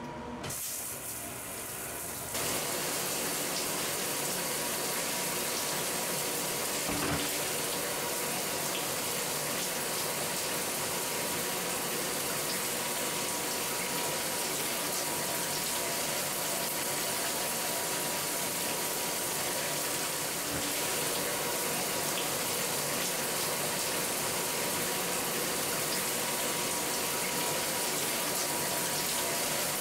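Shower running: a steady hiss of water spray that comes on about two seconds in, after the valve handle is turned, with a faint steady tone underneath.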